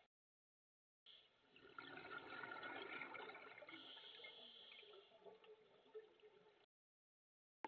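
Scuba regulator exhaust: a diver's exhaled air bubbling and gurgling past the underwater camera housing, starting about a second in and cutting off abruptly near the end.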